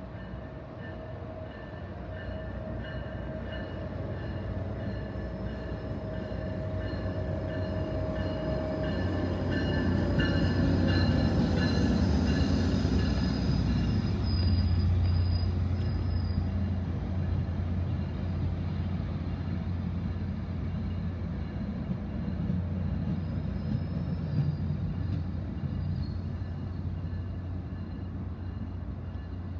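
Tri-Rail commuter train with bilevel coaches approaching and rolling past: a steady low diesel rumble with wheel and rail noise, a few faint steady high tones over it in the first half. It is loudest between about ten and sixteen seconds in, then eases as the train slows.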